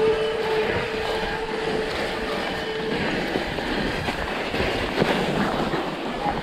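Mountain-bike tyres sliding and scraping down a slushy snowfield, a continuous rough noise. A steady tone runs through the first half and stops about three seconds in.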